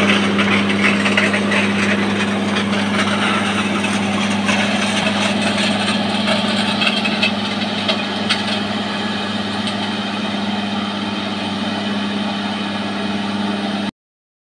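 Ballast regulator machine's engine running steadily: a constant low hum with a rushing mechanical noise over it, a couple of sharp clicks about eight seconds in, and an abrupt cut-off near the end.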